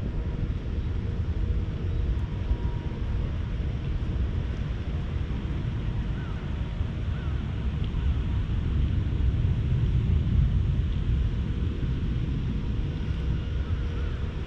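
Steady low wind rumble buffeting the camera microphone outdoors, with a few faint short chirps heard over it twice, partway through and near the end.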